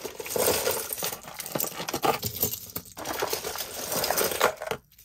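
A pile of costume jewelry being pushed and sorted by hand: metal bangles, chains, beads and glass stones jingling and clinking together in rapid clusters. There are brief pauses about three seconds in and just before the end.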